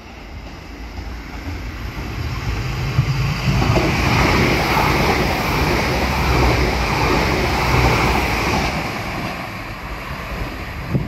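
A Northern Ireland Railways diesel multiple-unit train passes along the platform. The rush of its wheels and engines builds over the first few seconds, holds loud for about four seconds, then fades.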